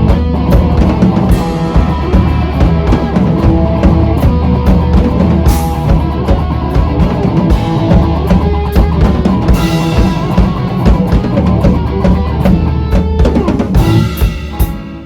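Live rock band playing an instrumental stretch between sung lines: a drum kit with steady bass drum and snare hits drives it, over held bass and electric guitar notes.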